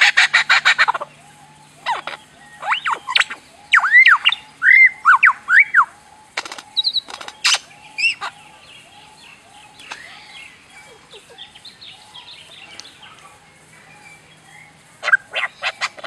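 Birds calling. A fast pulsed rattle ends about a second in, followed by a run of short rising-and-falling chirps and a few sharp clicks. A brief rattle returns near the end.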